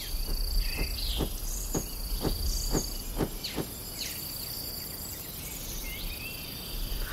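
Tropical jungle ambience: a steady high insect drone with scattered bird chirps. During the first three and a half seconds a soft pulse repeats about twice a second.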